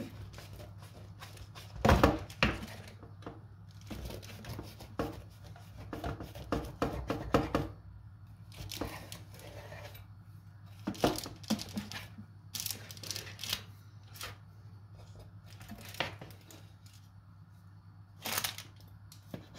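Large kitchen knife sawing through a freshly baked flaky poppy-seed pastry on a paper-lined baking tray. Irregular spells of crunchy crackling and scraping, with the blade rasping through the crust and against the baking paper, separated by short pauses.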